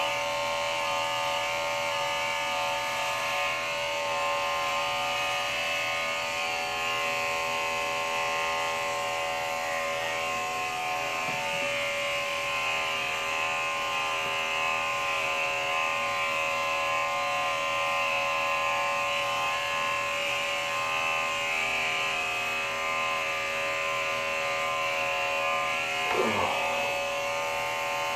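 Corded electric hair clippers buzzing steadily as they are run over a closely shaved scalp, with a brief shift in pitch about two seconds before the end.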